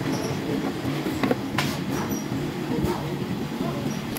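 Steady low mechanical rumble of workshop machinery, with a few sharp metallic clicks.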